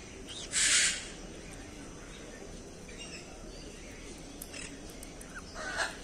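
Harsh, crow-like screech of a green-cheeked conure, loud about half a second in, then a shorter screech near the end, with a few faint chirps between.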